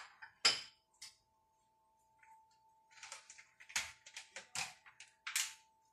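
Kitchen containers and utensils handled at the counter: a few sharp clicks in the first second, then after a short pause a quick run of short taps and scrapes. A faint steady hum lies underneath.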